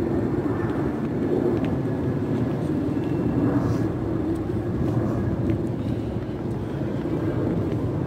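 Aeroplane passing overhead: a steady, low rumble.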